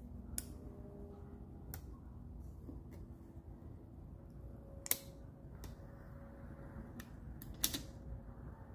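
Clear plastic transfer film being peeled off a freshly applied adhesive emblem overlay: a scattering of short, sharp clicks and crackles, the loudest about five seconds in, over a low steady background.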